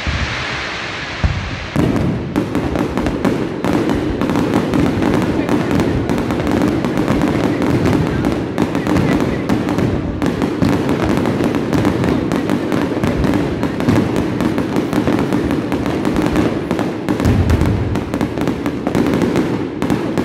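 Aerial fireworks display: a single bang about a second in, then from about two seconds on a loud, continuous crackling of many shells and crackling stars bursting at once.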